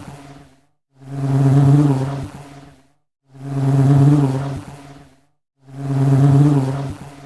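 Honey bee buzzing in repeated bursts of about two seconds, each swelling and then fading, with short silent gaps between: three full buzzes and the tail of a fourth at the start.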